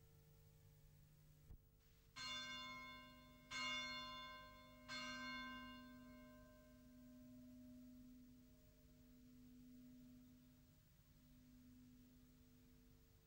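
A church bell struck three times, about a second and a half apart. Each stroke rings out and dies away, and a deep hum lingers after them, slowly swelling and fading.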